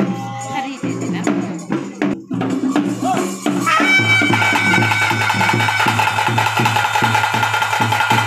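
Ritual music for a Koragajja kola: a voice chanting over hand-drum strokes, then about four seconds in a loud band starts up with held, steady wind-instrument tones over a regular drumbeat as the dance begins.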